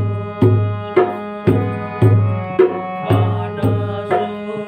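Kumaoni folk song music: harmonium holding sustained reed chords over a steady hand-drum beat, with deep strokes about twice a second.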